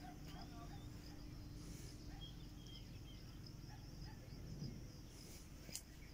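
Faint rural outdoor ambience: a steady insect drone with a few short bird chirps over a low rumble of wind.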